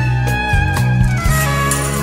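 Background music: an instrumental passage of a song, a melody line sliding slowly downward over a steady beat and bass.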